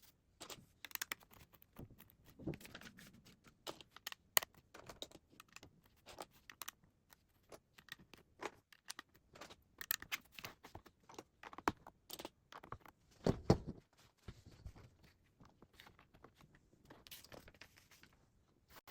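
Plastic Lego pieces clicking and rattling as they are handled and pressed together: irregular small clicks, with one louder knock about two-thirds of the way through.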